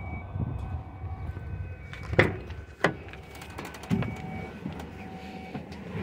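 Truck cab door being unlatched and swung open: a few sharp clunks and knocks over a low rumble.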